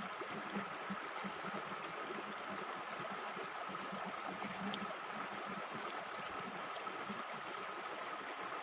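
Waterfall: a steady, unbroken rush of falling, splashing water.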